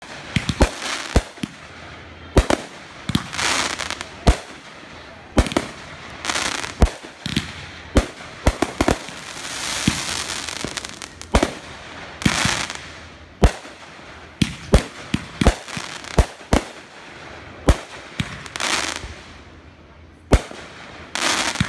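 Aerial fireworks bursting: a long run of sharp bangs, some coming in quick clusters, with stretches of crackling hiss from the bursting stars in between.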